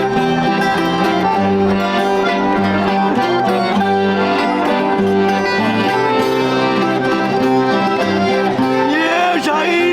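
Live folk music played on plucked string instruments (guitars) with accordion, a steady, lively strummed accompaniment.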